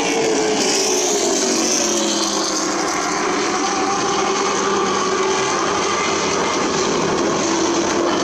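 Several short-track stock-car engines running hard as the cars circle the oval, a steady drone whose pitch slowly falls and rises as cars pass by.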